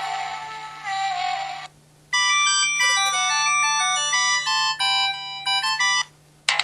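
MS400 mobile phone playing its built-in ringtone melodies one after another through its speaker. One synthesized tune with sliding pitches ends about a second and a half in. After a short break a different chiming polyphonic melody plays for about four seconds, and a third ringtone starts near the end.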